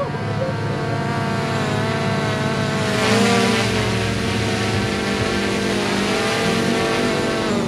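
Dune buggy engine running under load, its revs climbing about three seconds in, holding, then dropping off near the end.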